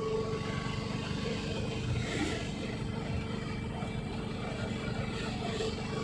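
A small canvas-covered goods vehicle is driving, heard from its cargo bed. Its engine runs at a steady, even hum with road noise.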